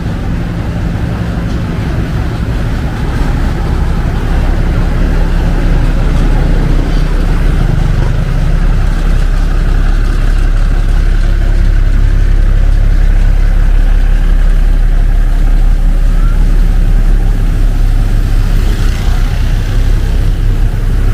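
A large engine idling nearby: a steady low drone that grows louder about three seconds in, with faint voices in the background.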